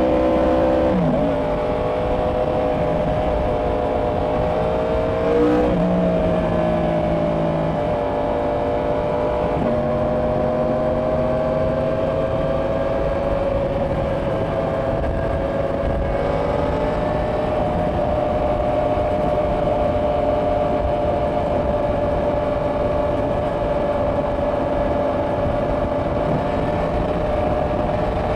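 2024 Yamaha R1's crossplane inline-four on its stock exhaust, running at a steady highway cruise with its pitch drifting slowly upward and two brief pitch changes in the first six seconds, under heavy wind rush on the microphone.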